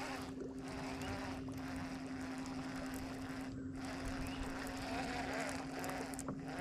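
Steady hum of the boat's motor, with a constant even hiss of wind and water behind it.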